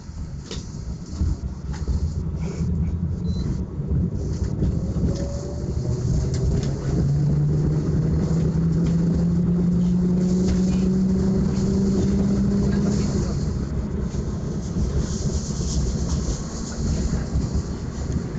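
Tram running, heard from inside the car: a steady rumble with scattered knocks and rattles from the car over the rails. About six seconds in, the traction motor's hum climbs slowly in pitch for several seconds as the tram picks up speed.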